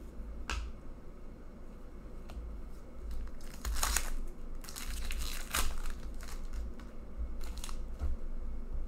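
A foil trading-card pack torn open by hand, the wrapper crinkling in several short bursts, loudest around the middle.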